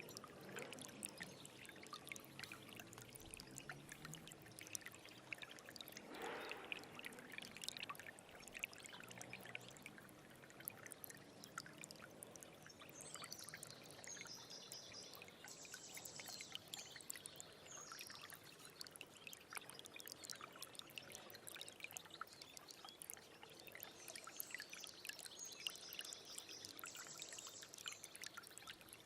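Faint stream water trickling and splashing steadily over stones, full of small drip and splash sounds. A bird's high, repeated trilling comes in twice, around the middle and near the end.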